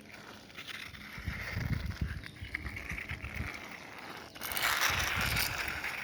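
A plastic toy car being handled and rolled, its wheels and body rattling, with a louder rustling scrape a little past halfway.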